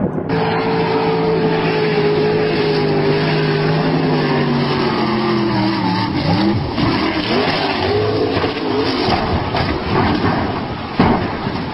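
Drag boat's racing engine running hard, its pitch sliding slowly down, then wavering up and down unevenly. Rough knocks near the end as the boat runs up onto the rocky bank.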